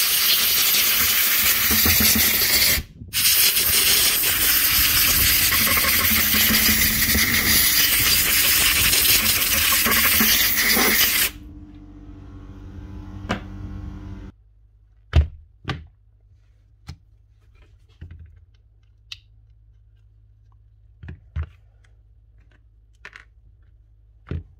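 Compressed air blasting into the opened cordless grinder to blow out built-up dust jamming the switch lever: a loud, steady hiss with one short break about three seconds in, stopping about eleven seconds in. A quieter hum follows for a few seconds, then scattered small clicks and knocks of handling the tool.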